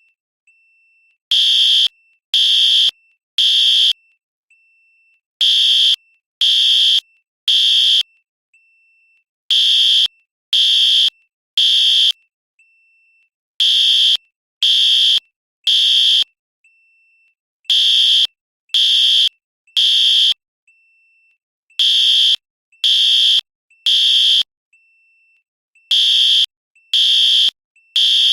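Fire alarm sounding the temporal-three evacuation signal: three loud half-second blasts, then a pause of about a second and a half, repeating about every four seconds. Faint short beeps sound in the pauses.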